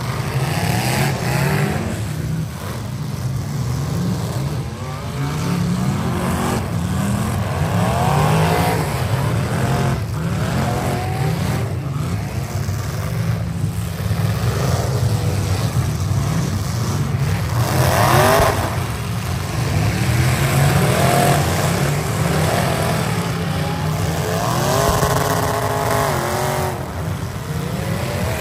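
Several V8 demolition derby cars revving hard, their engines rising and falling in pitch over and over as they spin their wheels and drive around.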